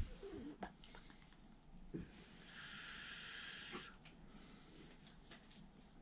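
A person exhaling in a long, faint hiss of about a second and a half, with a few soft taps and rustles from hand and arm movements.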